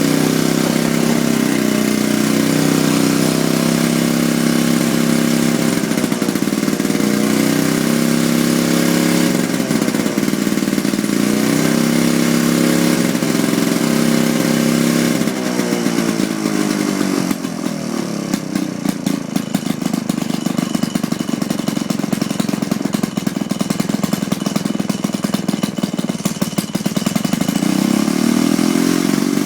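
Vintage Victa 18 rotary lawnmower's small petrol engine running steadily at speed, then slowing about halfway through to an uneven idle with separate, audible firing beats, and picking back up near the end.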